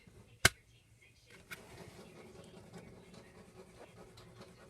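Handling of CD packaging: a sharp plastic click about half a second in, a lighter click a second later, then soft rustling and handling noise.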